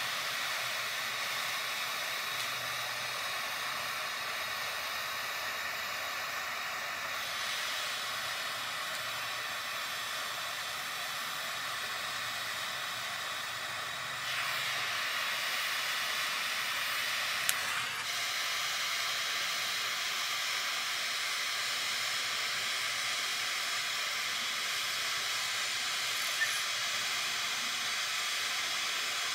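Steady hiss of a handheld butane micro torch flame heating a brass ferrule on a speaker binding post to flow solder into it, with a couple of faint clicks in the second half.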